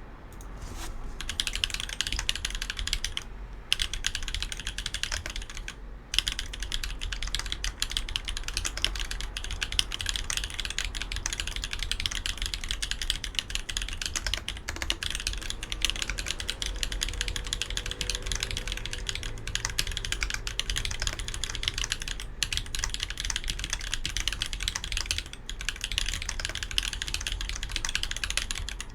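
Continuous typing on an Evelynn mechanical keyboard with YOK Holy Panda tactile switches on 70g springs: a dense, even run of keystrokes, broken by short pauses a little over 3 seconds in and again about 6 seconds in.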